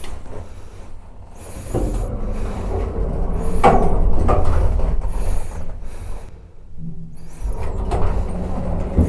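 TVS Apache RR 310's single-cylinder engine running, its low rumble swelling about two seconds in and dropping away briefly near seven seconds before picking up again.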